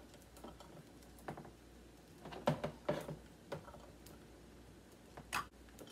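Faint, scattered clicks and taps from handling and opening a metal can of black beans, a few clustered in the middle and a sharper click near the end.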